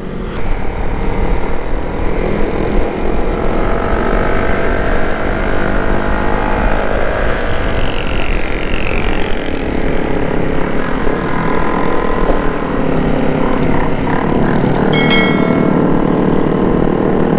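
Honda Sonic 150R single-cylinder motorcycle engine running under way, its pitch rising and falling with throttle and gear changes, over wind rush on the helmet-camera microphone, with other motorcycles riding close by.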